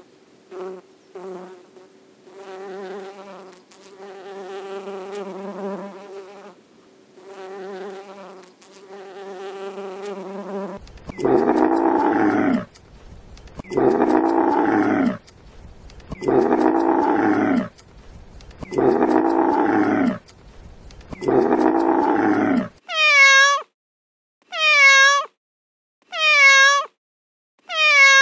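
A bee buzzing with a steady pitch, starting and stopping, for about the first ten seconds. Then a camel gives five long, loud groaning calls, evenly spaced. Near the end, a cat meows several times in quick succession, each meow falling in pitch.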